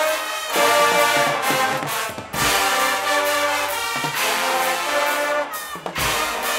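Guggenmusik band of brass and drums playing loud sustained brass chords in short phrases, with brief breaks between them.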